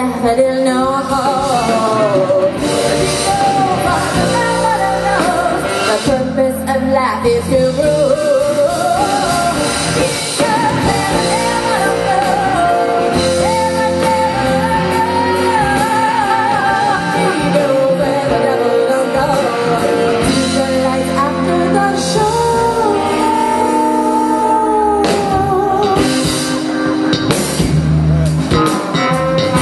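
Live rock band playing, with a woman singing lead over drums, electric guitar and keyboard; near the end a trombone comes in.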